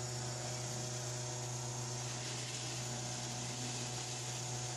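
Steady machine hum with an even hiss over it, unchanging throughout, from equipment running nonstop.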